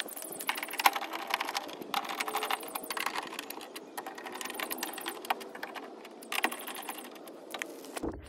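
Socket ratchet clicking in quick runs as 10 mm bolts on a car window regulator are run in and tightened inside the door, with a few metallic knocks among the clicks.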